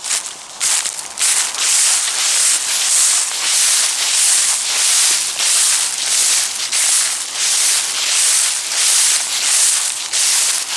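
Footsteps crunching and crackling through dry fallen leaves, at a steady walking pace of about two steps a second after an uneven first second.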